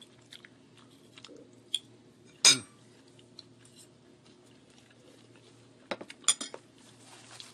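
A metal fork clicking and clinking against a plate several times, the loudest knock about two and a half seconds in and a quick cluster of clicks near the end, with faint chewing between. A low steady hum underneath.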